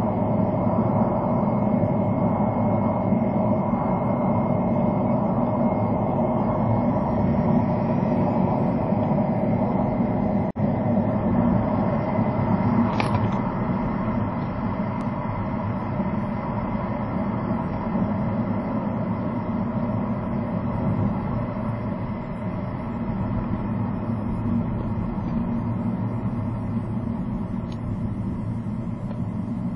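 Steady road and tyre noise with engine hum inside a car cabin, picked up by a dashcam while driving on an expressway. The noise eases slightly as the car slows toward a toll gate.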